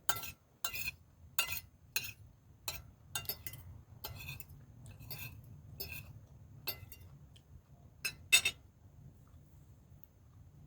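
Cutlery clinking against dishes while eating: about a dozen sharp, irregular clinks over the first eight or nine seconds, the loudest pair near the end.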